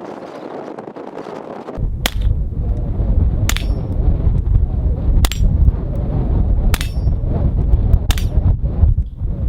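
Five shots from a Taurus TX22 .22 LR pistol, about a second and a half apart, each with a ring from a struck steel target plate. Heavy wind buffets the microphone from about two seconds in.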